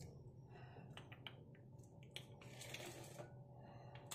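Faint light clicks and taps as fried pakoras are set down on a ceramic plate, over quiet room tone.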